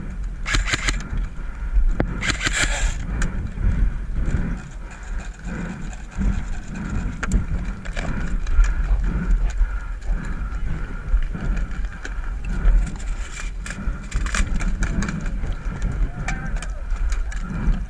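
Footsteps and handling knocks from a carried camera moving over rough ground, with wind rumbling on the microphone and scattered sharp clicks.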